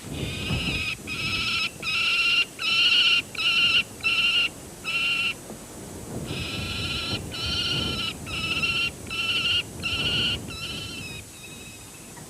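Peregrine falcon giving a series of harsh, repeated calls, each about half a second long. There are about six in a row, a short pause, then about seven more that fade near the end.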